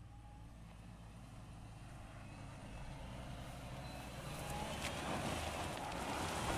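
Toyota Land Cruiser Prado crawling uphill off-road, its engine running low and steady while its tyres crunch over loose gravel and rocks. The sound builds as the vehicle comes close, loudest near the end.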